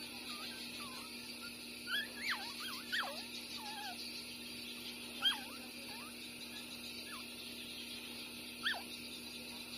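Newborn puppies, six days old, squeaking and whimpering while nursing: short high squeaks that rise and fall in pitch. There is a flurry of several about two to four seconds in, then single squeaks about five seconds in and near the end.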